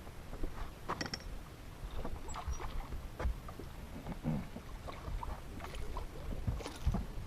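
Scattered irregular knocks and clicks over a low rumble aboard a small fishing boat, with no engine running.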